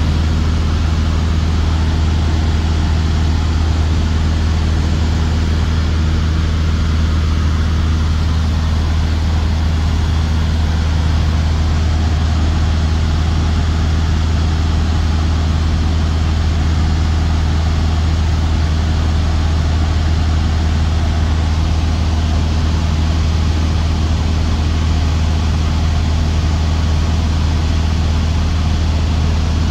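Light aircraft's engine and propeller droning steadily in flight, heard from inside the cabin, with a strong low hum under a wash of rushing air.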